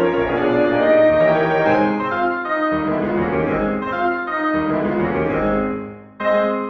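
Slow piano background music playing sustained notes; it fades about six seconds in and a new loud chord is struck just before the end.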